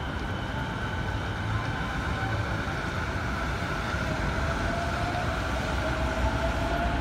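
Keihin-Tōhoku Line E233-series electric commuter train running along an elevated viaduct: a steady low rumble with whining tones from its traction motors, over city street noise.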